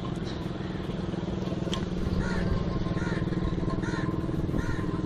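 An engine running steadily with a low, fast-pulsing hum. From about two seconds in, a short higher-pitched call repeats roughly once a second over it.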